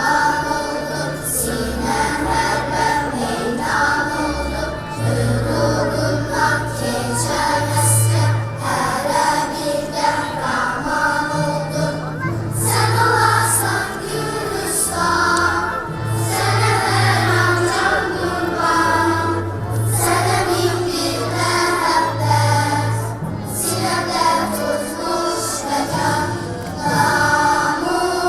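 A choir singing a song over instrumental accompaniment, with a bass line moving in held notes about a second each.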